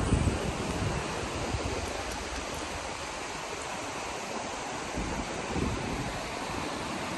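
Surf washing onto a sandy beach, a steady rushing hiss, with wind buffeting the microphone in gusts, strongest at the start and again about five seconds in.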